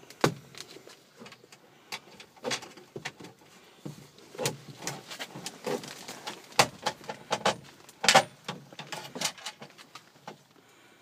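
Irregular clicks, knocks and rattles of flexible conduit and its connector fitting being handled and pushed into a metal electrical box while wiring a pressure switch.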